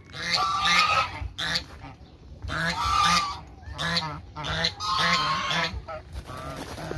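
White domestic geese honking in the pen, a string of repeated calls one after another.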